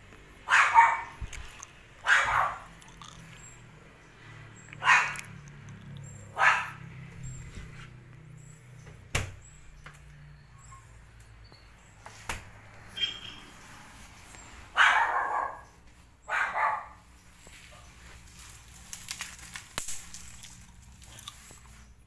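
A dog barking, about six single barks spaced a second or more apart with a long pause in the middle, and a couple of sharp clicks in between.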